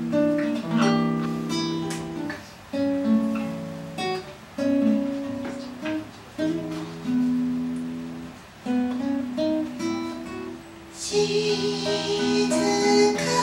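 Acoustic guitar playing a slow introduction, chords plucked and left to ring down. About eleven seconds in, a woman's singing voice comes in over the guitar.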